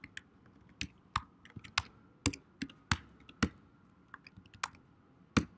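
Typing on a computer keyboard: a run of separate key clicks at an uneven pace, with a couple of short pauses.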